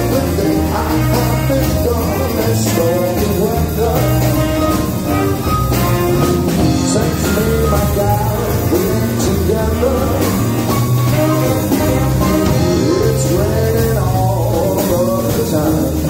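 Live big band combo playing a standard, with saxophones, trombone and trumpet over drums and keyboard.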